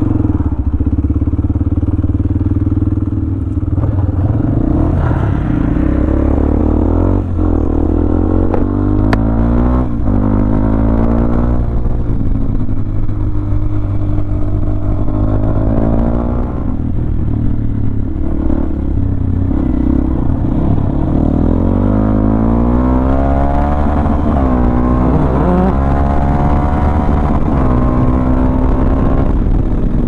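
Motorcycle engine running under way, its pitch rising and falling several times as the throttle is opened and eased off, over a steady low rumble.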